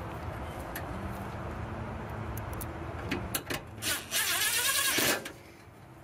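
A cordless power driver runs for about a second, about four seconds in, driving a screw through a ring terminal into the fountain's sheet-metal frame. A few small clicks of handling the screw and terminal come just before it.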